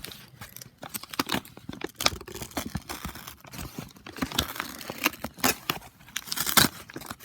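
Packaging being torn open and crinkled by hand: a run of irregular rips and rustles.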